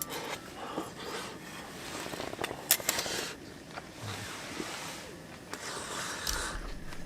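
Rustling and scraping of things being handled, with a few sharp clicks, the loudest about two and a half seconds in.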